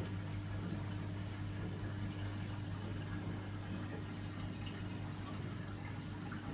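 Water trickling and dripping steadily in a 900-litre mixed reef aquarium, over a steady low hum.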